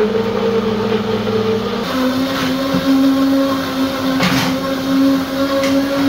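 AGARO Imperial 2200 W professional blender running with its noise-reducing enclosure cover open, the motor's steady whine stepping up in pitch about two seconds in as it speeds up.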